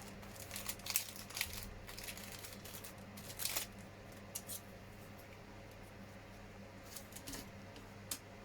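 Scattered light clicks and rustles of small plastic model parts being handled and fitted together, busiest in the first few seconds, over a steady low hum.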